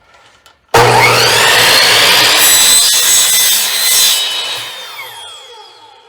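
A power saw starts with a rising whine a little under a second in and cuts through a retaining-wall block for about three seconds, then winds down, its whine falling as the motor coasts to a stop.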